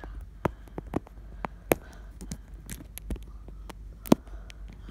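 Plastic LEGO bricks clicking and knocking together as pieces are picked out and handled: a string of sharp, irregular clicks, the loudest about four seconds in.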